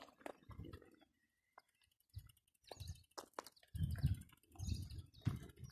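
Footsteps on dry dirt, quiet for a moment about a second in, then regular steps through the second half, with birds chirping faintly.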